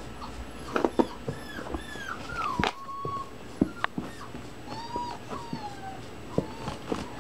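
Puppy whimpering in high whines that fall in pitch: a few short ones, then two longer drawn-out ones. Scattered light knocks come through among them.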